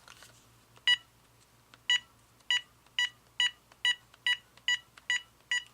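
Ten short keypad tones from a General Electric 2.4 GHz cordless phone as a number is dialled on its keypad, the first about a second in and the rest coming quickly and evenly.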